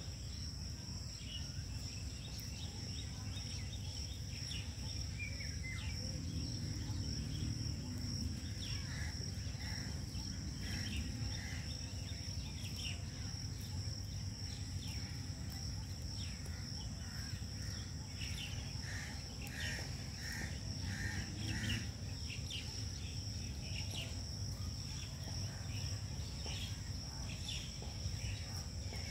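Outdoor ambience: a steady high-pitched insect buzz throughout, with intermittent short bird chirps, over a low steady rumble.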